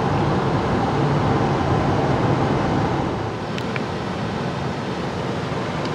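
Steady road and engine noise of a car driving on a highway, heard from inside the cabin. It eases a little about halfway through.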